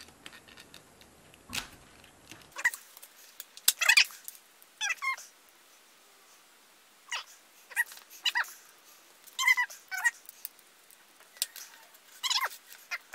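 Clear plastic Raspberry Pi 4 case layers being pressed and fitted together by hand: a string of irregular short clicks and brief squeaks of plastic rubbing on plastic.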